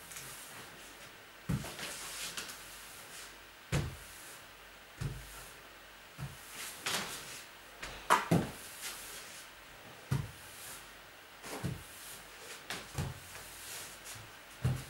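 Irregular knocks and bumps, roughly one every second or two, with a stretch of scraping and rustling in the middle: boxes and things being handled and set down in a small room.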